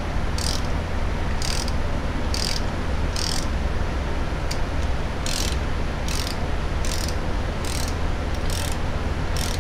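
Ratchet wrench turning a pipe tap into an aluminium transmission case by hand: short bursts of pawl clicking about once a second, over a steady low hum.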